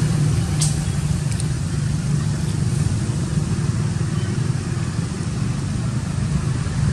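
Steady low engine rumble of a motor vehicle running nearby, with two faint clicks in the first second and a half.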